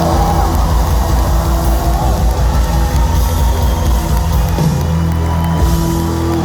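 Live rock band playing loudly through a venue PA: sustained bass notes under a fast driving drum pulse, in the closing bars of the song.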